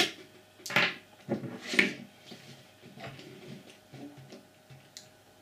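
Small plastic and metal parts of a disassembled 12 V air compressor (its motor and piston assembly) being handled on a wooden table. There are sharp clicks and knocks, the loudest three in the first two seconds, then softer scattered taps.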